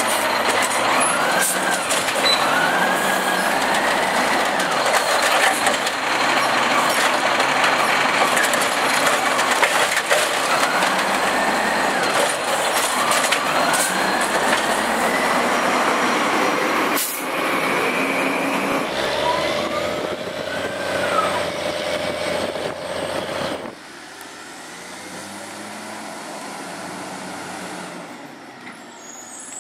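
Side-loading garbage truck running close by, its diesel engine and hydraulic compactor working, loud, with the pitch rising and falling several times as the engine speeds up and slows down. About 24 s in it gives way abruptly to the quieter, steadier sound of another garbage truck further off.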